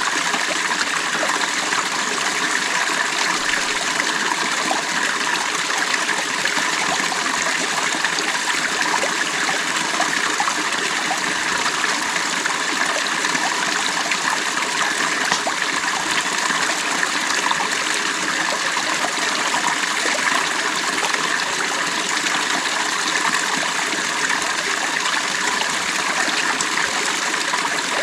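Stream water flowing and splashing over stones in a steady, even rush.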